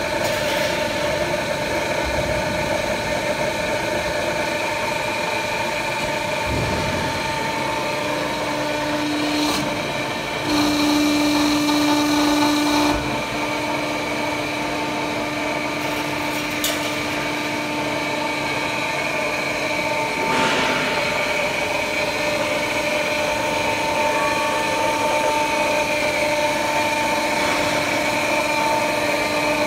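3D fence mesh welding and bending machine running with a steady machine hum made of several held tones. It gets louder for a couple of seconds about ten seconds in, and there is a sharp click about halfway through and a knock a few seconds later.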